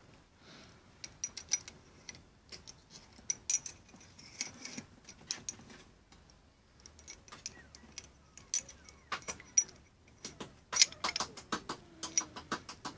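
Small metal parts of a Colt 1851 revolver clicking and clinking irregularly as they are handled and fitted during reassembly, the clicks coming thicker near the end.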